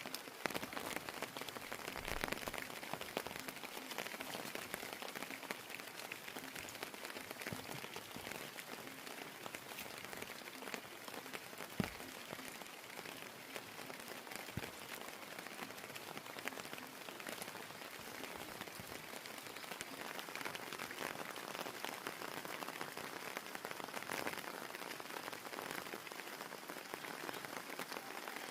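Steady rain falling, with many individual drops ticking on hard surfaces. One sharper drop or knock stands out about twelve seconds in.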